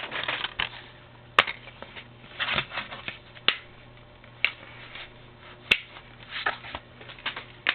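Plastic DVD case being handled and opened: short rustles and scattered sharp clicks, with the loudest snaps about a second and a half in and again nearly six seconds in.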